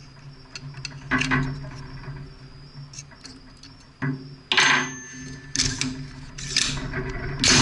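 Metallic clicks and clacks from an AR-15 rifle being handled as a 300 Blackout dummy round is loaded into its action. There are about six sharp, irregularly spaced knocks, the loudest near the end.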